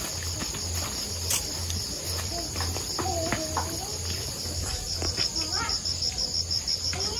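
Night insects such as crickets chirping steadily in a high trill, joined about five seconds in by a fast, regularly pulsing chirp.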